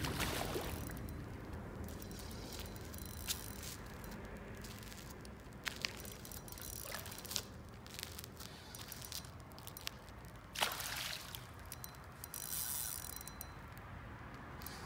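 Spinning reel being cranked to retrieve line, a quiet mechanical whirring with a few sharper clicks scattered through it.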